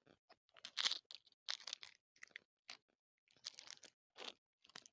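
Plastic water bottle crinkling and crackling in the hand, a string of short irregular crackles as it is handled and drunk from.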